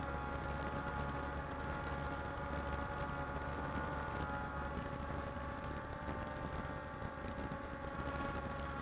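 Walkera Scout X4 quadcopter's electric motors and propellers running steadily in flight, a chord of several held tones over a low hum, drifting only slightly in pitch.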